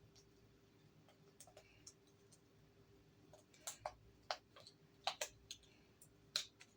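Coins and their packaging being handled: scattered small sharp clicks and taps, sparse at first and coming more often in the second half.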